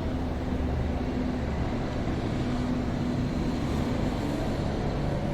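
Steady low rumble of a moving bus's engine and road noise, heard from inside the cabin, with a faint steady hum.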